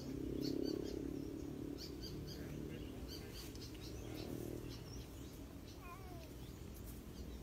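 A domestic cat growling low and steadily at a snake it is confronting. The growl is loudest in the first second or so and fades out over the next few seconds. Faint bird chirps sound behind it.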